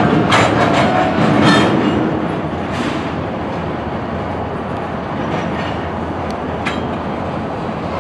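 Covered hopper cars rolling slowly along yard track as a cut is shoved toward a kick: a steady rumble of wheels on rail with scattered sharp clicks from wheels and couplers, a little louder in the first two seconds.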